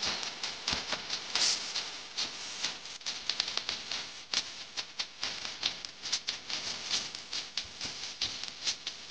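Rapid, irregular light clicks and rattles of close-up handiwork: hands picking up and placing small craft pieces, with bangles knocking.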